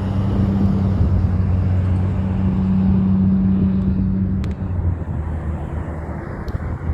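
Heavy truck engine running loud and close, a steady low drone that eases off after about four and a half seconds.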